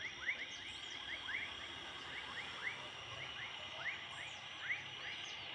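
Dusk chorus of frogs and insects: short rising chirps repeated a few times a second, irregularly, over a steady high-pitched trilling.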